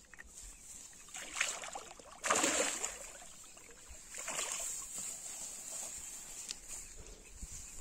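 A hooked rohu fish thrashing and splashing at the water's surface as it is pulled in to the bank, in a few separate splashes, the biggest about two seconds in.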